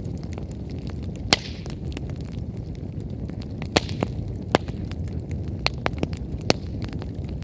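Wood fire burning: crackling with scattered sharp pops over a low steady rumble. The loudest pops come about a second in, twice around four seconds, and once at about six and a half seconds.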